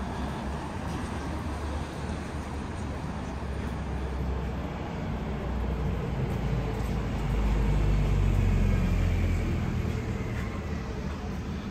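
City street traffic, with a bus passing close by in the road: a low rumble that swells about seven seconds in, is loudest for a couple of seconds, and fades again.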